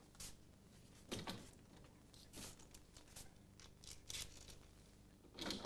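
Faint, scattered soft rustles and knocks, several seconds apart and loudest about a second in and near the end, over a low steady hum.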